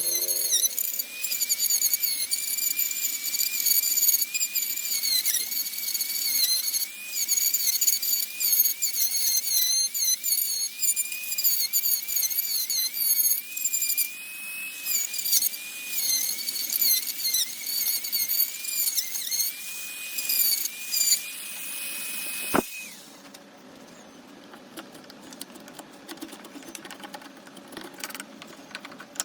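High-speed rotary tool whining as it cuts into wood, its pitch dipping again and again as the bit bites under load. It is switched off about three-quarters of the way through and stops sharply, leaving a faint low hum.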